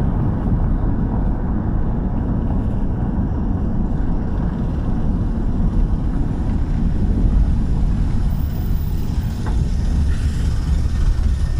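Steady engine and tyre-on-road rumble heard from inside a moving vehicle's cabin.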